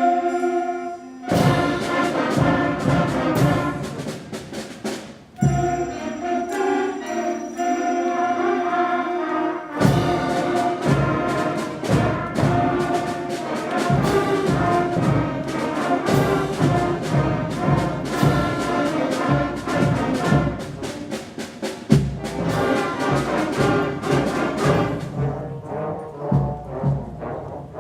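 School concert band playing, brass and percussion with timpani. Thinner held chords alternate with full-band passages that come in about a second in, about ten seconds in and again a few seconds from the end.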